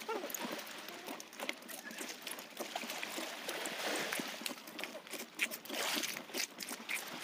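Shallow sea water lapping and trickling at a rocky shoreline, with many scattered clicks and crunches of footsteps on coral rubble.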